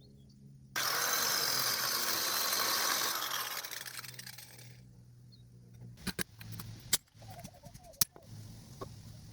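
A grinder cutting into the staked collar of a car's rear axle nut. The harsh grinding starts suddenly about a second in, holds for about two seconds, then trails off. A few sharp metal clinks follow.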